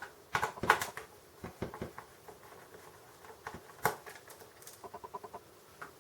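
Small screwdriver working screws out of a computer motherboard: scattered sharp clicks and taps of metal on metal and plastic, with a short run of quick faint ticks about five seconds in.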